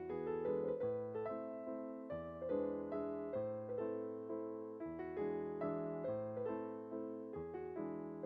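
Background piano music, a gentle melody of struck notes over repeating low chords.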